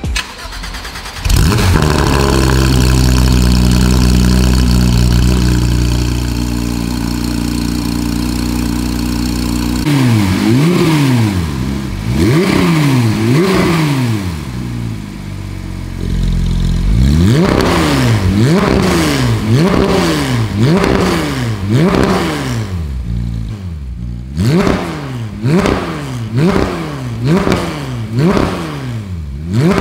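Porsche 911 GT3 RS's 4.0-litre naturally aspirated flat-six, breathing through an IPE titanium exhaust with 200-cell catted headers and no side mufflers, starts about a second in and idles steadily. From about ten seconds in it is revved in quick blips, roughly one a second, first with the exhaust valves closed and later with them open.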